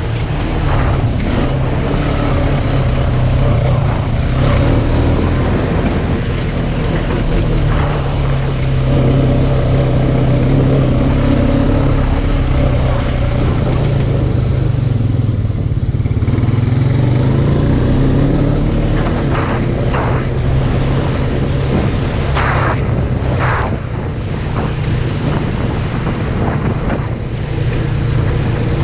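Polaris RZR side-by-side engine running, its pitch rising and falling as it is revved, with a few sharp knocks about twenty seconds in.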